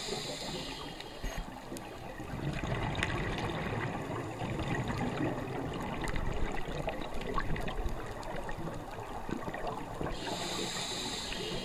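Scuba regulator breathing heard underwater. A hiss of inhalation through the demand valve comes at the start and again near the end, with a long bubbling, crackling rumble of exhaled air between.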